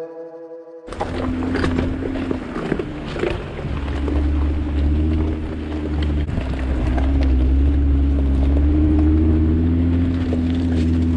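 Jeep's engine droning at low trail speed while its tyres crunch over a loose, rocky dirt road, with scattered clicks of stones. Guitar music cuts off about a second in, just before the vehicle sound starts.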